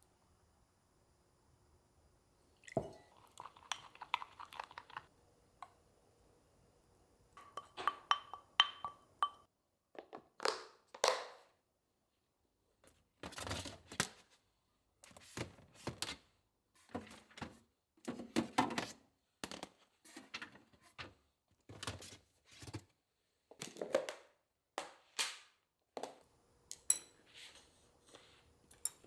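A string of short kitchen handling sounds: thunks, clinks and crackles of dishes and containers being set down and handled, about twenty in all, each separated by a brief silence.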